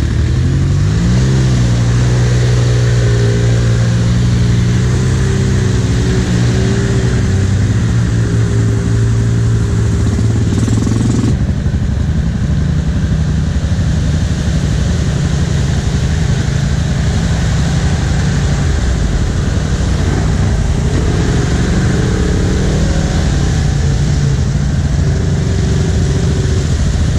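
Off-road side-by-side and ATV engines running on a muddy trail. One engine revs up about a second in and holds a steady pitch. About eleven seconds in the sound changes abruptly to a rougher mix of engine noise.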